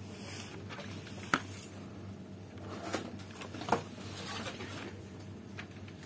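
Clear plastic packaging of a glasses case handled with gloved hands: a few sharp clicks and light rustles, over a steady low hum.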